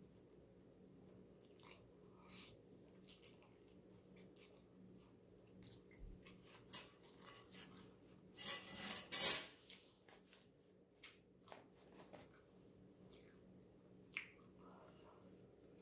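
Close-up eating sounds of a person slurping and chewing instant noodles, with small clicks of metal chopsticks. A louder, longer slurp comes about nine seconds in.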